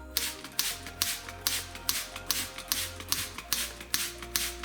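A hand-pumped spray bottle spritzing water in quick, even squirts, about two and a half a second, to soak the inside of a hat before it is stretched.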